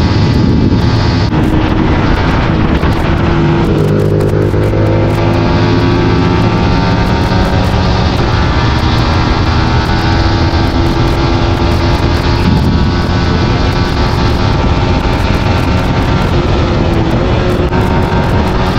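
Yamaha MT-15's 155 cc single-cylinder engine running at highway speed under heavy wind rush on the microphone. The engine note shifts in pitch a couple of times as the bike slows from about 135 km/h and is shifted down from sixth through fifth to fourth gear.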